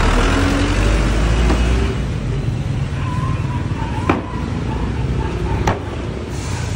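Roadside traffic noise, with a vehicle rumbling past close by in the first two seconds. Two sharp knocks come later.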